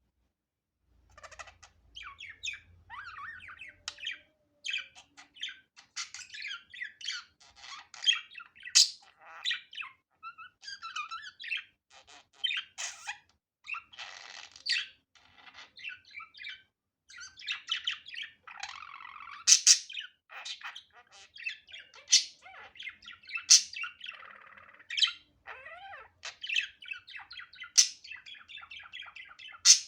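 Budgerigar warbling and chattering in a fast, busy stream of chirps, with loud, sharp squawks breaking out every few seconds. It starts about a second in.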